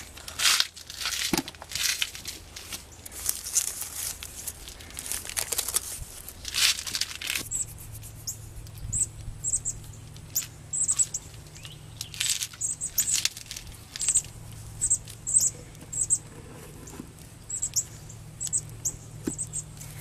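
Rustling, crinkling and scraping as hands work wet hypertufa cement and a plastic bag on a birdhouse mold, for about the first seven seconds. After that, small birds chirping in many short, high notes.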